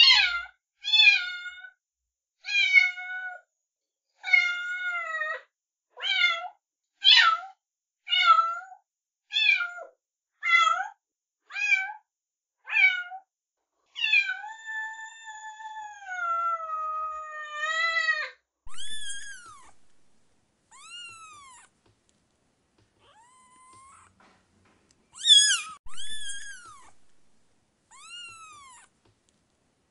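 Domestic cat meowing over and over, about one short meow a second, then one long meow of about four seconds falling in pitch. After that come higher, shorter arching mews a second or two apart.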